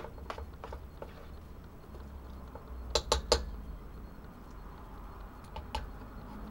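Metal spoon clinking and scraping against a steel cooking pot while stirring a thick bean stew: light taps, then three sharp clinks in quick succession about three seconds in, and two more near the end.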